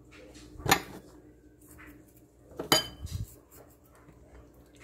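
Two clinks of kitchen dishware, about two seconds apart, as a dish or utensil knocks against a ceramic plate or bowl. The second is louder and rings briefly.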